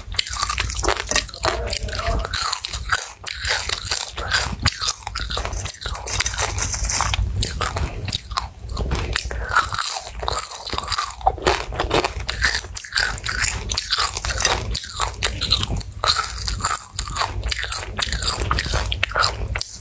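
Chewing and crunching crispy fried grasshoppers close to the microphone: a steady run of irregular crackly crunches.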